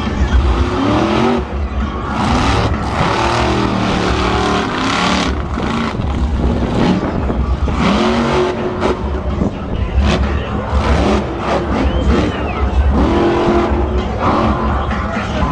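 Monster truck engine, a supercharged V8, revving up and down again and again over a heavy low rumble while the truck runs its freestyle.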